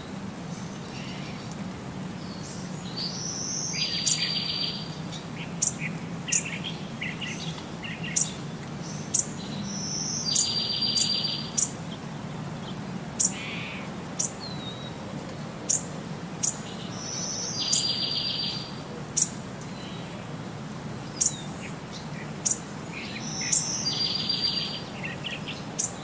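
Birds chirping and trilling in a looped ambience track. The same phrase of sharp high chirps and a short rapid trill repeats about every six and a half seconds over a steady low hum.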